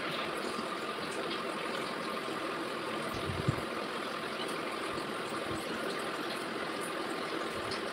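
Steady background hiss with a faint high whine, and one short low thump about three and a half seconds in.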